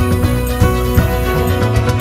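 Live band music with no singing: a violin section holds bowed notes over bass and a drum beat.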